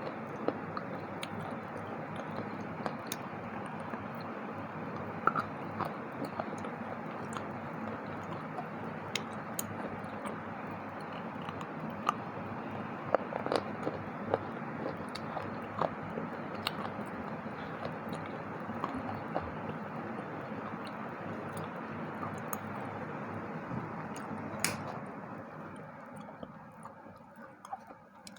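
A person chewing and biting a crunchy snack close to the microphone: soft, steady crunching with scattered sharper clicks, growing fainter over the last few seconds.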